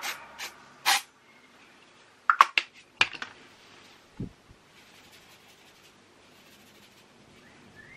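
Three short hisses from an aerosol dry-shampoo can in the first second, then a few sharp clicks and a dull thump about four seconds in, then faint rustling as the hair is tousled by hand.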